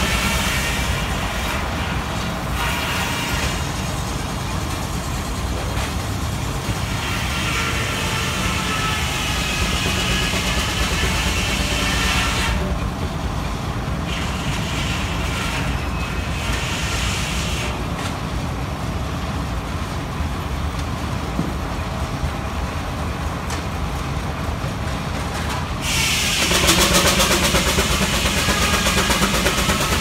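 Steam traction engines powering a sawmill, with a steady low machinery rumble throughout. A louder hiss comes in sharply near the end.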